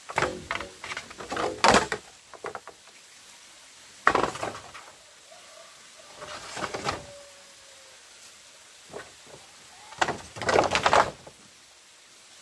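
Long green bamboo poles knocking and clattering against each other as they are shifted and slid down a dirt bank, in four separate bursts of hollow knocks.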